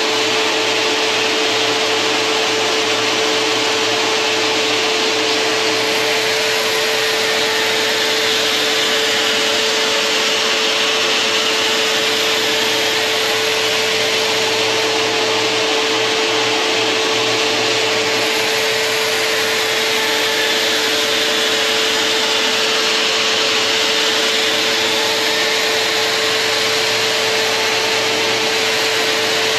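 A Henry vacuum cleaner running steadily, its suction holding a thin plywood sheet down on a scarf-cutting machine, together with the machine's sanding disc running as it cuts the scarf. A constant rushing whine with one strong, steady tone.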